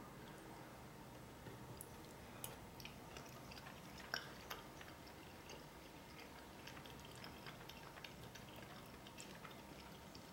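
Faint chewing of a mouthful of food, with scattered soft clicks, the sharpest about four seconds in.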